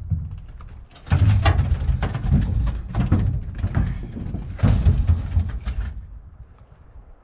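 Gusty wind buffeting the microphone in uneven bursts, with wooden knocks as pine firewood rounds are picked up and tossed into a pickup truck's bed.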